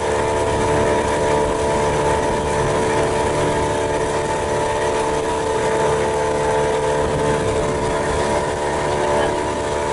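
Motorboat engine running at a steady speed, a constant droning hum with no change in pitch.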